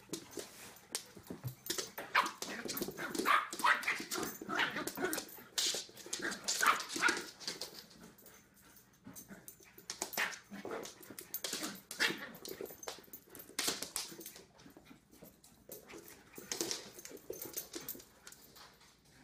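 A puppy and a giant poodle playing, with short high-pitched dog cries coming in quick runs, thickest in the first third, among scattered sharp clicks.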